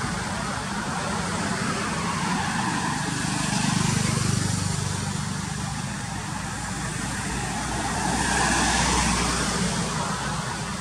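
Road traffic: two vehicles pass in turn, one swelling and fading about four seconds in, the next about nine seconds in.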